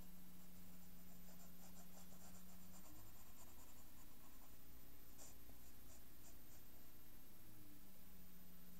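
Graphite pencil scratching on paper in quick short sketching strokes, in clusters with brief pauses, over a steady low hum.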